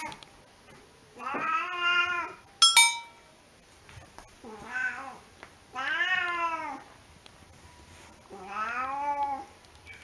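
A cat meowing four times, long drawn-out meows that rise and fall in pitch, with a short sharp clink about two and a half seconds in.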